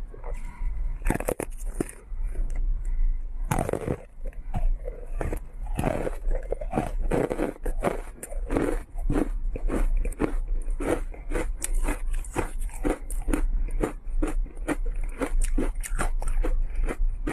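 Frozen matcha green tea ice being bitten and chewed close to the microphone: crisp crunches, a couple of big bites early, then quick steady crunching at about two to three a second.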